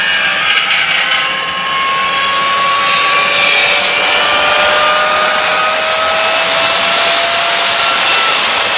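Jouef HO-scale TGV Ouigo model train running on its track: a steady whir from its small electric motor and wheels, with a thin whine that slowly rises in pitch.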